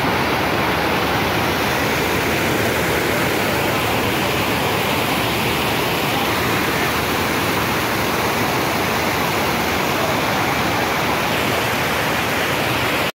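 Fast-flowing muddy floodwater rushing along and over a road edge, a steady loud rush of water.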